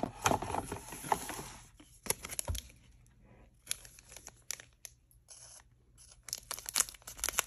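Foil trading-card booster pack being crinkled and torn open, crackling in the first second or so and again near the end, with quieter rustling between.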